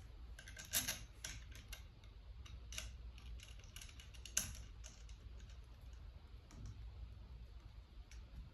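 Faint, irregular light clicks and taps of small-parts hand work: a screw being driven in by hand while its nut is held, with the sharpest clicks about a second in and just past four seconds.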